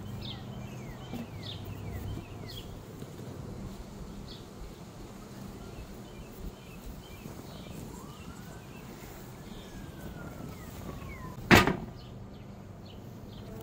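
A sneaker set down on a glass tabletop, giving a single sharp knock near the end. Birds chirp in short falling calls in the background over a faint steady low hum.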